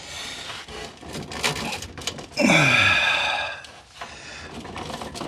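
A man's short, falling grunt or sigh of effort about two and a half seconds in, preceded by a few light clicks of metal parts being handled.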